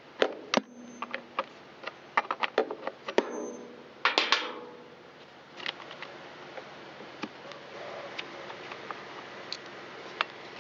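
Metal clicks and knocks of a socket wrench working the bar-cover nuts loose on an Echo CS-355T chainsaw, with the saw's plastic housing being handled. The clicks come thick and fast, loudest about four seconds in, then thin out to occasional light ticks as the nuts are turned off by hand.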